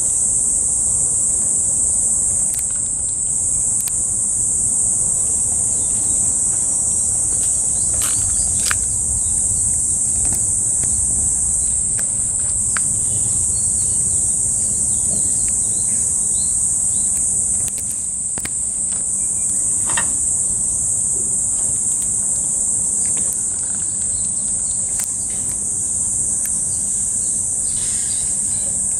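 A steady, high-pitched insect drone runs without a break, with a few faint short clicks here and there.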